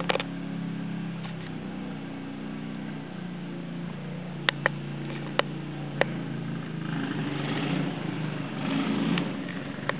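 Quad bike (ATV) engine running as it is ridden. The note is steady and swells a little later on as it picks up. There are four short sharp clicks near the middle.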